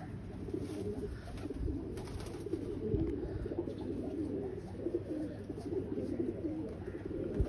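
Domestic pigeons cooing at a loft, several low coos overlapping into a continuous chorus.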